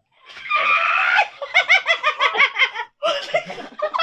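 People laughing hard. The laughter breaks into a rapid run of short, high "ha" pulses, several a second, then picks up again in a fresh burst about three seconds in.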